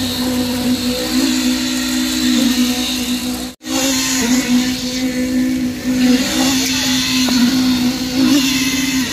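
Internal poker concrete vibrator running with its head in fresh concrete, a steady high hum that sags slightly in pitch now and then as it takes load. The sound cuts out for an instant about a third of the way in, then carries on.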